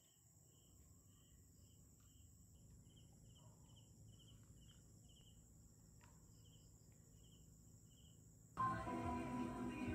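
A cricket chirping faintly, short high chirps about twice a second. Music cuts in abruptly near the end.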